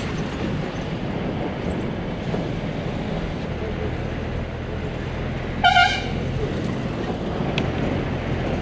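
Bus engine running steadily with road rumble, heard from inside the cabin. A horn sounds once, briefly and loudly, a little past halfway.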